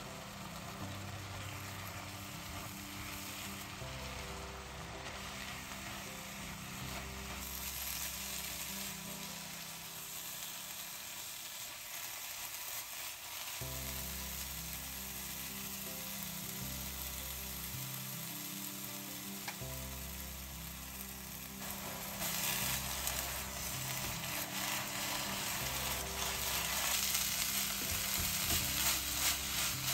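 Grated apples frying in butter in a pan, with a steady sizzle while a spatula stirs them. The sizzle gets louder about a quarter of the way in and again about two-thirds of the way through.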